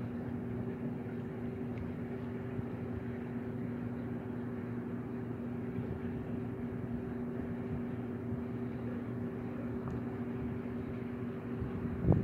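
Steady machine hum with two unwavering tones over a low rushing noise, and a brief knock near the end.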